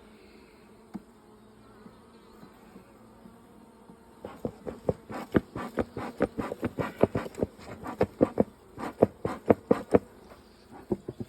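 Honeybees buzzing over an open hive with a faint steady hum. From about four seconds in until near the end, a quick, irregular run of sharp ticks or taps sounds over it.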